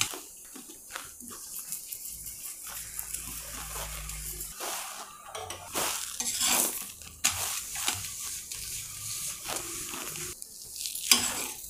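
Masala chapati cooking with ghee on a flat tawa: a light sizzle with irregular scrapes and clatter of a utensil on the pan.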